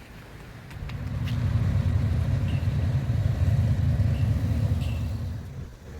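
A motor vehicle driving past on the street, its low engine and road rumble building about a second in and fading away near the end.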